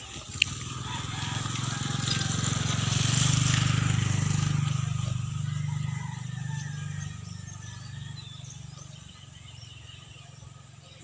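A small engine's low, pulsing drone that grows louder over the first few seconds, then fades away after about six seconds, as a motor vehicle going past does. A single sharp click comes just after the start.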